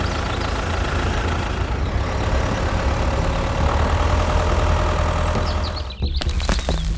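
A vehicle engine idling with a steady low rumble. About six seconds in the rumble dips briefly, and a run of clicks and knocks follows.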